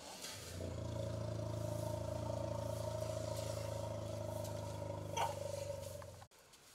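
A steady, even-pitched low drone swells in over the first second, holds unchanged, then cuts off abruptly near the end, with a short higher chirp about five seconds in.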